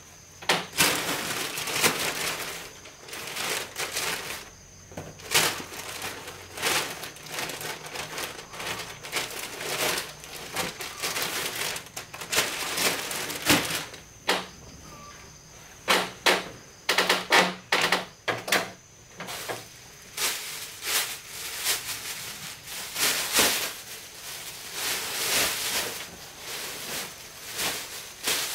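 Irregular knocks, clacks and scrapes of things being handled and set down by hand, in flurries a few seconds apart.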